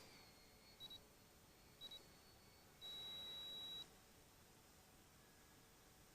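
Radio-control transmitter beeping: short double beeps about once a second, then one long beep about a second long. This is typical of a flight timer counting down and signalling that the set time is up.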